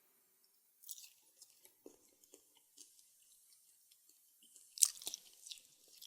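Close-miked crunchy eating of Taco Bell food: faint crackly chewing in the first half, then a sharper crunchy bite about five seconds in, followed by a few more crackles.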